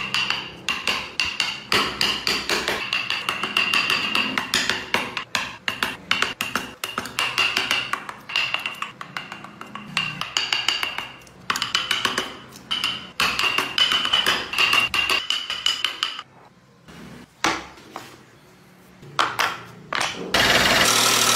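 Hand-held carving chisels and gouges cutting into wood: rapid, irregular knocks and taps of the tools striking the workpiece. The knocks ease off about three quarters of the way through, then return as a few scattered ones.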